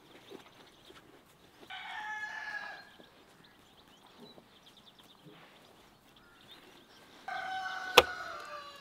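A rooster crowing twice, a call of about a second and then a longer one near the end. Partway through the second crow comes a single sharp knock, the loudest sound, as the dough is slapped onto the inside wall of a clay tandoor.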